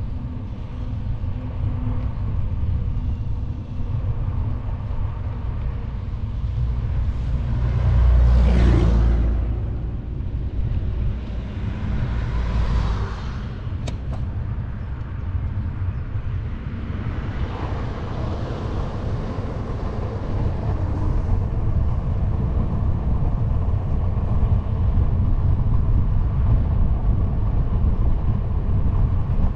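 Wind buffeting the microphone of a camera on a moving bicycle: a steady low rumble. Louder swells of rushing noise come about eight, twelve and eighteen seconds in, the first the loudest.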